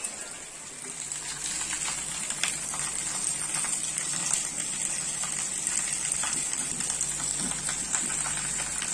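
Heavy monsoon rain falling steadily on a wet street and puddles: an even hiss with many scattered drop ticks.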